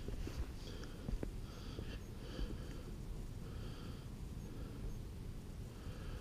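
A hiker breathing hard, each breath a short hiss repeating every half second to a second, over a steady low rumble of wind and handling on the camera microphone. There is a single sharp tap about a second in.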